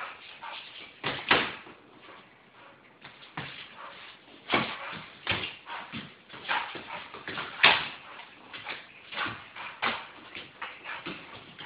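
A pit bull attacking a box swung at it: irregular knocks, scuffs and rattles from the box and the dog's scrambling, with the loudest knock about three-quarters of the way through.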